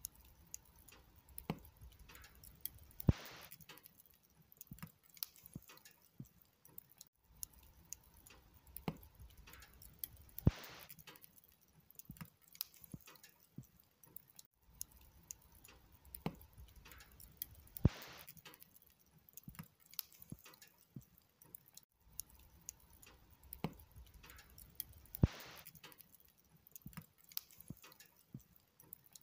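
Wood log fire crackling: scattered sharp snaps over a faint hiss. The same pattern repeats about every seven and a half seconds, each time with one louder snap and a brief rush of hiss.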